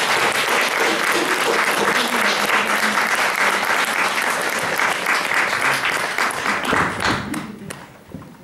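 Audience applauding after a song, fading away about seven seconds in.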